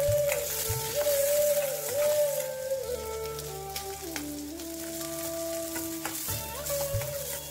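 Shallots and garlic sizzling as they fry in a steel kadai, with a steel spoon stirring them and clicking against the pan. Instrumental music plays over it.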